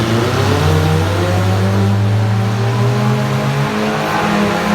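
Demolition derby car engines revving hard, one climbing in pitch over the first couple of seconds, over a steady wash of arena noise.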